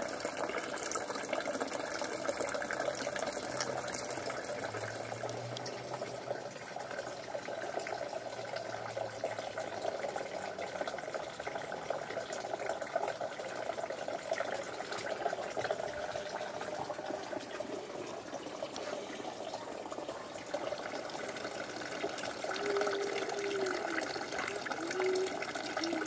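Garden water feature: a steady stream of water falling from a spout into a bamboo piece and basin, splashing without a break.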